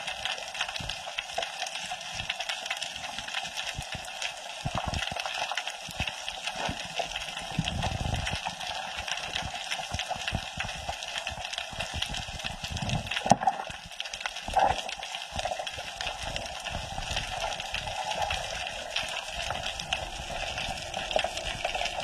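Underwater reef ambience picked up by the camera in its housing: a steady crackle of fine clicks over a hiss. A low rumble comes about eight seconds in, and there are two louder knocks a little past halfway.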